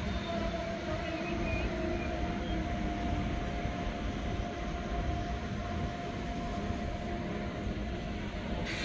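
ICE 3 (class 403) electric high-speed train pulling slowly out of a station: a steady rumble from the wheels on the track with a steady whine over it, and a short hiss near the end.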